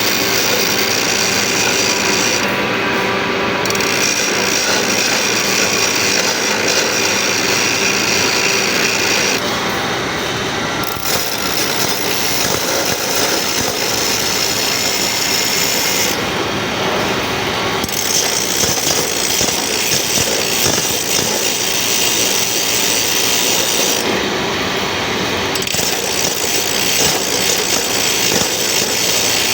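Teeth of a crosscut saw being sharpened: a continuous rasping of the sharpening tool on the saw's steel teeth. Its tone changes abruptly several times.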